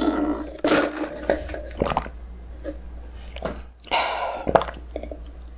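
Sipping a drink through a plastic straw from a nearly empty iced cup: a slurp at the very start and a louder, longer slurp about four seconds in, with small mouth and swallowing clicks between.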